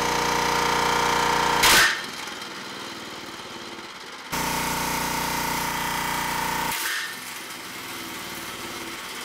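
Small single-cylinder gas engines running starved of oil and knocking. About two seconds in there is a sharp bang and the sound drops away, the sign of one engine's connecting rod breaking and the engine quitting, while a lighter running sound carries on. The same bang and drop come again about seven seconds in.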